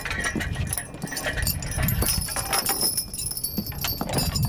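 Gun crew handling a muzzle-loading field cannon: boots knocking on the wooden gun platform and gear clattering, with high metallic jingling through the middle.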